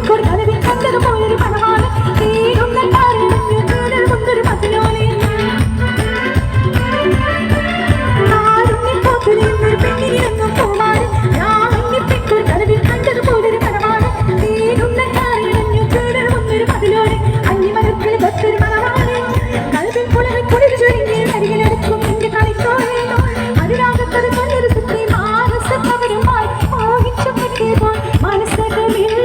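Song with singing over a steady, dense beat, played loud through a stage sound system.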